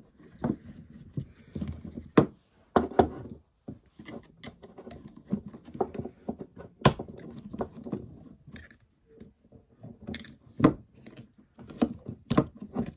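Irregular clicks and knocks of hard plastic parts as an opened cordless drill's housing and motor brush holder are handled and worked apart with a small screwdriver, with a few sharper snaps among them.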